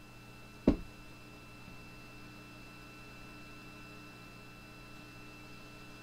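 Open launch-control voice loop between countdown calls: a steady electrical hum with faint steady tones, and one sharp click about two-thirds of a second in.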